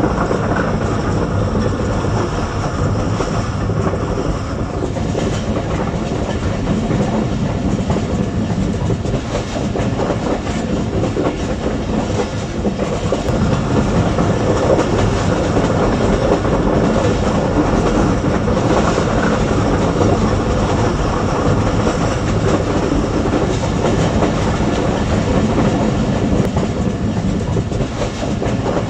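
Passenger train running at speed, heard from its last coach: a steady rumble and rattle of the wheels on the rails.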